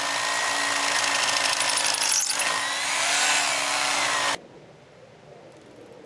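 Power hammer drill boring into the concrete slab through the steel base channel, drilling an anchor hole. It runs steadily at full speed for about four seconds, then stops abruptly.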